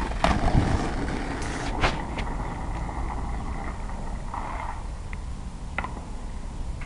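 Skateboard wheels rolling on asphalt with a steady low rumble. There are a few sharp knocks in the first two seconds.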